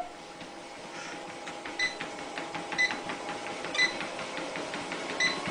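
A running treadmill: a steady motor hum and belt noise, with a short, sharp tick about once a second.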